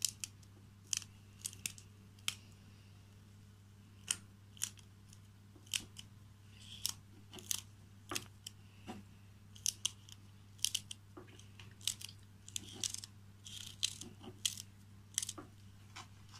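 Small knife cutting small pieces off a fresh green chili pepper held in the hand, a string of crisp, irregular cuts.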